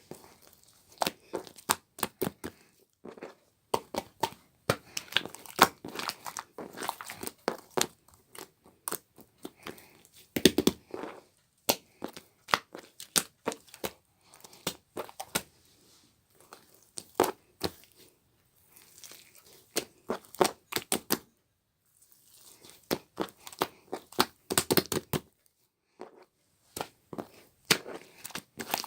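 Irregular crinkling and crackling handling noise: a rapid, uneven series of sharp clicks and rustles with short pauses, and one brief quiet gap about three-quarters of the way through.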